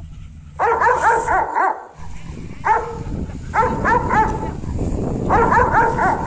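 Rottweiler barking in play, in four quick volleys of short, sharp barks, each volley a rapid string of four to six barks.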